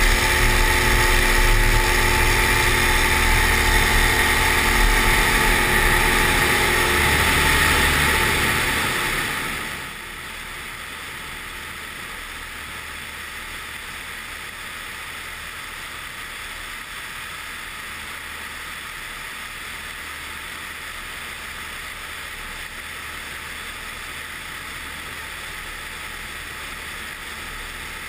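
Pipistrel Virus SW 100's Rotax 912 engine running at full power on the takeoff roll, a steady loud drone. About ten seconds in the level drops and a steady rush of airflow past the wing-mounted camera takes over, with the engine faint beneath it.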